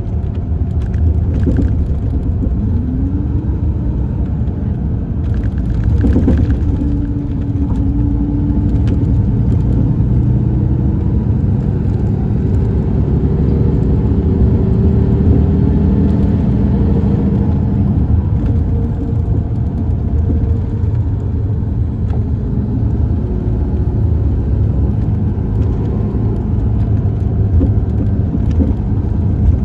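Interior ride noise of a 2015 MCI D4505 coach under way: its Cummins ISX12 diesel running, with a steady low rumble and road noise. A tone rises in pitch a few times as the coach gathers speed.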